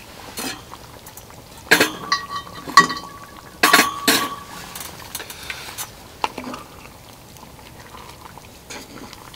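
Cast-iron cookware clanking and ringing as it is moved on a wood stove top, in two clusters of sharp clinks about two and four seconds in. After that comes softer scraping as a wooden spatula stirs a simmering curry in a cast-iron pot.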